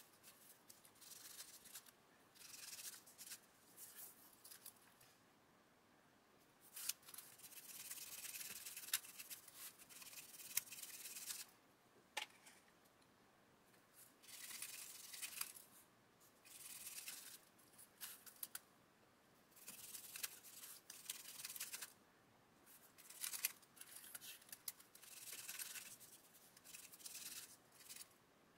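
Faint, irregular scratchy rubbing and scrubbing of fingertips and a cotton bud working metallic pigment into 1/16 scale model tank track links, with occasional small clicks as the track links shift on the paper.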